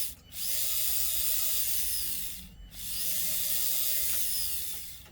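An Axial SCX24 mini crawler's new motor and metal gearbox whirring under throttle in two runs of about two seconds. The whine climbs in pitch as each run starts and sinks as it spins down, with a brief stop between.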